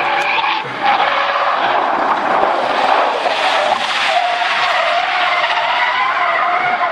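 Car tyres squealing through a long drift, a loud screech that wavers in pitch, with a short break under a second in.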